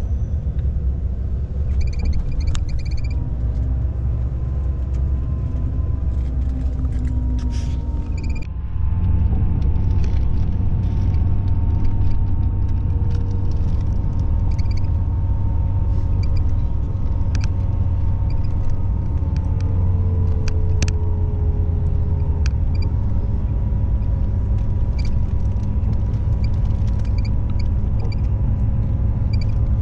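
Steady low rumble of an intercity coach's engine and road noise, heard inside the cabin while it drives, with faint whining tones and scattered light clicks. The sound changes abruptly and grows louder about eight and a half seconds in.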